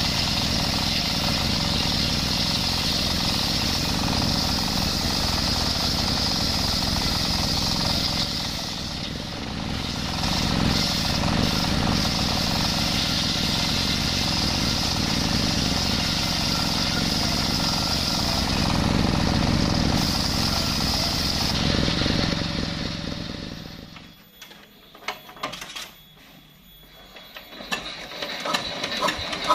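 Circular sawmill blade, driven by a single-cylinder diesel engine, screaming steadily as it rips coconut-wood planks, with a short lull partway through. About two-thirds in the sawing and engine die away to a few seconds of scattered clicks and knocks, and near the end the engine is started again.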